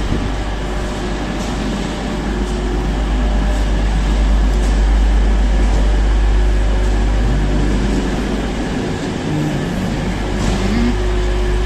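Railway station ambience under a train shed: a steady low rumble and hum from trains idling at the platforms, with a few faint light clicks.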